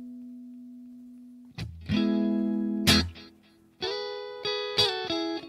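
Electric guitar played through a Positive Grid Spark amp with the Bass Comp compressor switched on. A held note rings and fades away, then about a second and a half in comes a run of picked notes and chords, each sustaining evenly.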